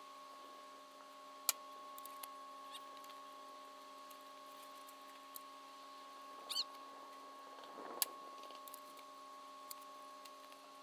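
A single sharp crack from an air rifle shot about a second and a half in, over a faint steady hum. A few lighter clicks follow, with a second sharp click later on.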